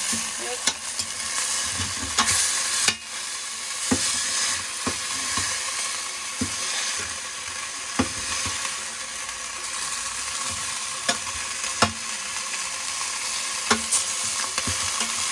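Chicken pieces sizzling as they fry in a stainless steel pan, with a metal spoon clinking and scraping against the pan every second or two as the pieces are flipped partway through frying.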